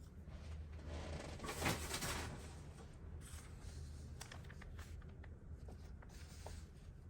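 Paper being handled: a rustling swish of paper about a second in, then a few light taps and clicks, over a low steady hum.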